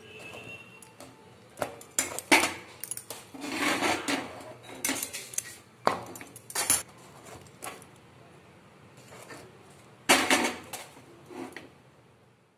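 A flat steel spatula clinks and scrapes on a metal tawa and the gas burner's grate as rotis are turned and moved. Several sharp clanks stand out, the loudest about two, six and ten seconds in, with short scraping sounds between them.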